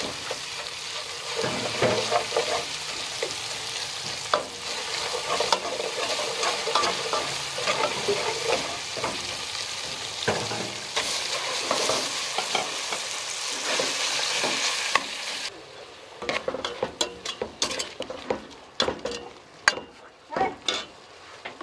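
Minced meat and chili frying in oil in a metal pot, sizzling steadily while a metal spatula stirs and scrapes against the pot. About fifteen seconds in the sizzle drops away abruptly, leaving separate scrapes and clicks of the spatula on the pot.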